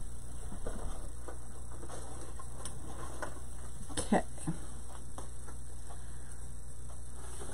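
Light clicks and taps of craft materials being handled, with one sharper knock about four seconds in, over a steady low electrical hum.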